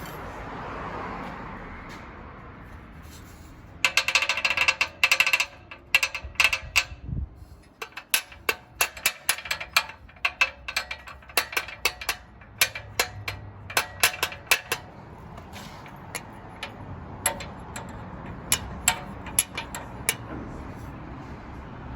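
Metallic rattling and clinking from a 2016 Porsche Macan's rear muffler. About four seconds in there is a dense rattle lasting about two seconds, then irregular sharp clicks that grow sparser. The exhaust flapper door is rattling loose because the spring on its actuator has broken.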